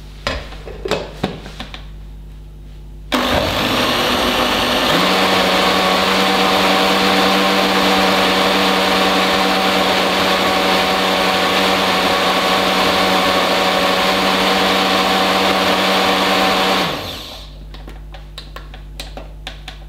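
Countertop jug blender blending basil pesto with freshly added Parmesan. It starts about three seconds in, spins up to a steady pitch over about two seconds, runs evenly for about twelve seconds, then winds down. A few clicks and knocks come just before it starts, as the blender lid is fitted.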